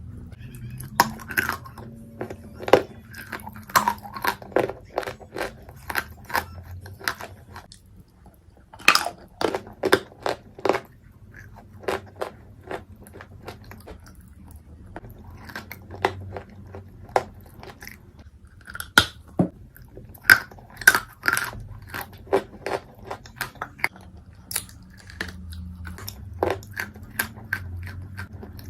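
Dry Turkestan clay being bitten and chewed close to the microphone: sharp crunches come in irregular clusters with short pauses between them.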